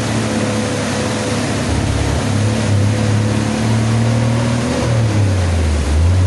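An engine running with a steady hum over a constant rushing noise. Its pitch drops slightly about five seconds in.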